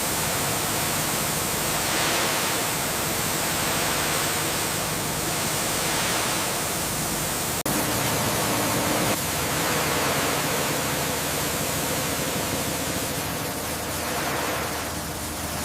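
A steady, even rushing noise with no clear pitch, cut off and resumed abruptly about halfway through.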